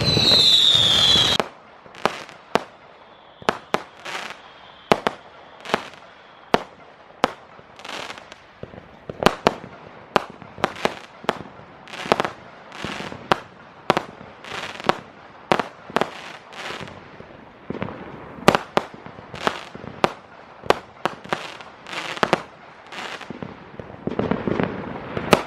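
Fireworks going off in a long irregular series of sharp bangs and cracks, one or two a second. It opens with a loud falling whistle that cuts off about a second and a half in.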